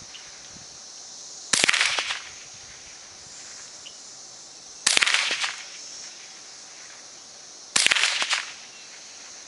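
A .22 LR Ruger 10/22 Sporter rifle firing three single shots about three seconds apart, each crack trailing off over about half a second. A steady high insect buzz runs underneath.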